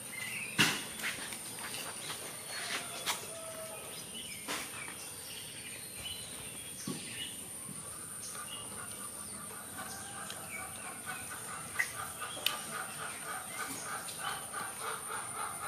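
Birds chirping and calling over a steady high-pitched whine. From about halfway, a fast run of repeated calls, several a second, sets in, with scattered light clicks throughout.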